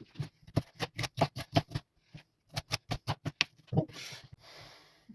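Knife chopping a bell pepper on a cutting board: quick knocks about five a second, a short pause, a second run of knocks, then a brief rustle near the end.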